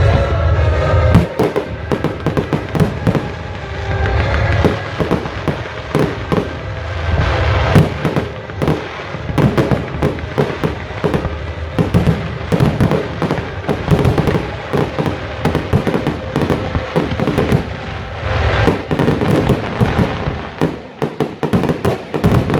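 Aerial fireworks going off in a rapid, almost continuous barrage of bangs and crackles, typical of a display's closing volleys.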